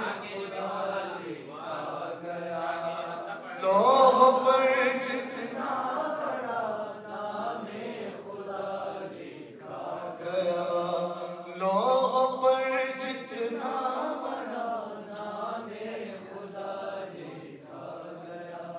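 Unaccompanied male chanting of a manqabat, an Urdu devotional poem, in long, drawn-out melodic phrases with no instruments. Louder phrases come in about four seconds in and again about twelve seconds in.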